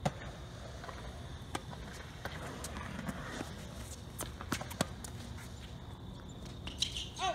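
Tennis point on a hard court: irregularly spaced sharp pops of racquets striking the ball and the ball bouncing, with footsteps on the court surface.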